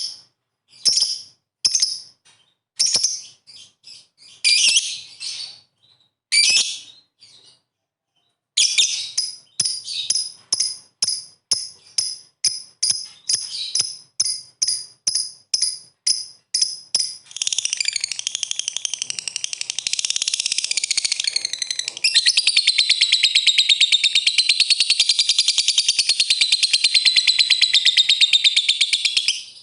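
Lovebird calling: sharp, high chirps, at first spaced unevenly, then a regular run of about two a second, breaking more than halfway in into a long, very fast continuous chattering trill, the 'ngekek' call, which gets louder partway through.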